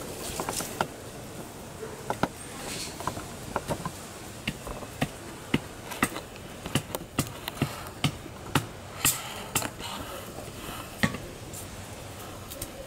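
Irregular sharp cracks and knocks: a small kindling fire crackling in a brick fire pit, with a hatchet chopping kindling.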